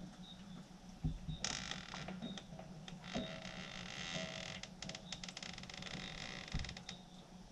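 Sliding glass patio door being rolled open along its track: a thump about a second in, then a scraping, rattling run with many small clicks in two stretches, creaking as it goes.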